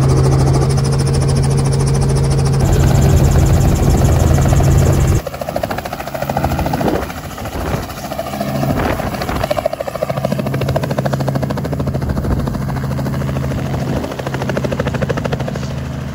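Light helicopter running: first a loud, steady engine-and-rotor hum heard inside the cabin, then, about five seconds in, the same kind of helicopter heard from outside as it hovers low and moves off, with a beating rotor chop that settles back into a steady hum.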